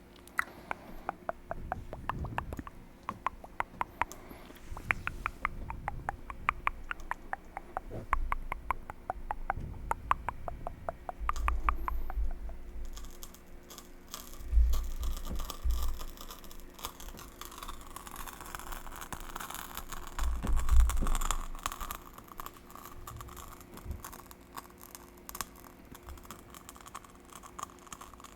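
Close-miked ASMR mouth sounds: rapid wet clicks and smacks from the tongue and lips, with a few dull thumps against the microphone, turning into a softer, hissier rustle about halfway through.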